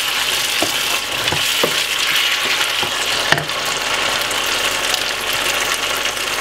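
Chopped peppers, carrot and onion sizzling steadily as they fry in a pan, stirred with a wooden spoon that knocks against the pan a few times.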